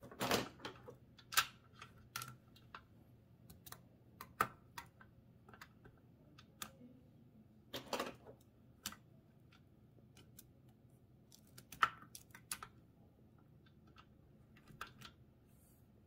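Toshiba BW-3112 Japanese kanji typewriter's mechanism being worked by hand: scattered, irregular mechanical clicks and clacks with quiet between them, the loudest about two seconds in, about eight seconds in and about twelve seconds in.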